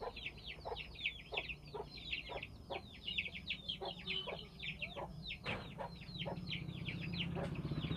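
Birds chirping continuously in the background, a dense run of short falling chirps, several a second.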